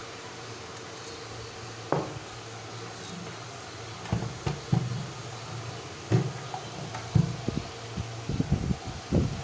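A steady fan-like hum, with irregular knocks and taps starting about two seconds in and coming more often near the end, as of hard objects being handled and set down.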